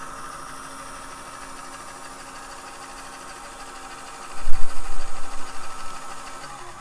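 Small LEGO Power Functions M electric motor spinning the fan of a LEGO jet engine model, with a steady whirring hum. About four seconds in, a louder low rumble starts and fades away over the next two seconds.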